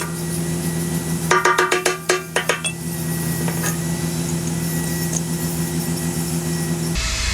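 A quick run of about a dozen ringing metallic clinks, about a second in, over a steady low hum of held tones.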